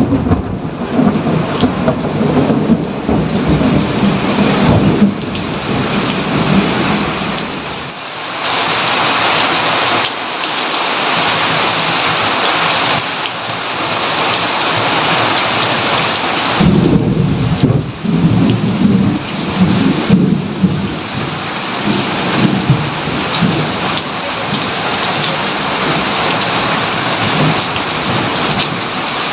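Steady rain falling during a thunderstorm. A long rolling peal of thunder fills the first several seconds, and a second roll of thunder comes in a little past halfway.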